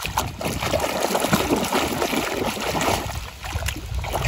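Water splashing and sloshing as a hand swishes a plastic toy excavator truck back and forth through muddy water to wash it, easing off a little near the end.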